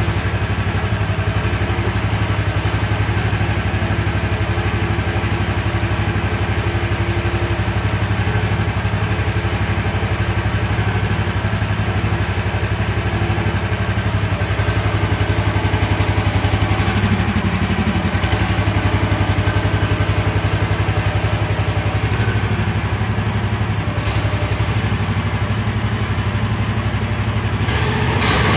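Mini excavator's engine running steadily just after starting, while the arm and bucket are worked through the hydraulics to check a newly fitted swing-motor cushion valve for leaks.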